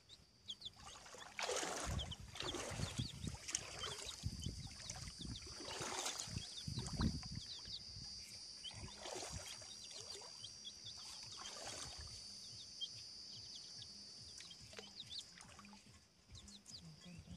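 Baby chicks peeping in short, falling high chirps over a steady high-pitched drone, with several louder rushing swells of noise in the first part.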